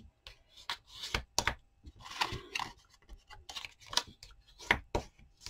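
Paper and card being handled and folded on a craft table: an irregular string of short rustles, taps and crinkles.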